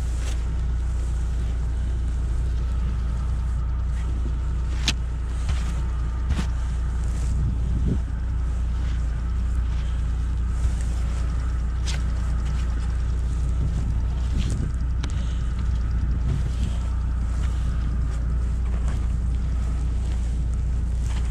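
Snow brush sweeping deep snow off a car's bonnet and windscreen, with a few sharp clicks. Under it runs the steady low rumble of the Lada Niva Travel's engine idling as it warms up in the cold.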